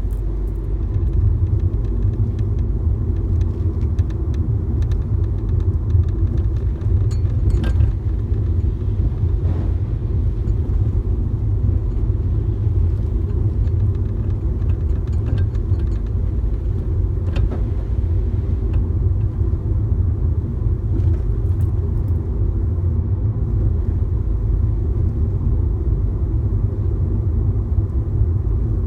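Fiat Grande Punto Abarth running with a steady low rumble, and scattered light metallic ticks and rattles from the front of the car that sound like something loose.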